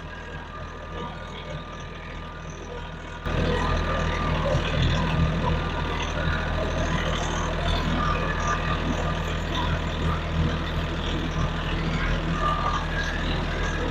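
Tractor diesel engine running steadily, with a steady low hum; it becomes abruptly louder about three seconds in.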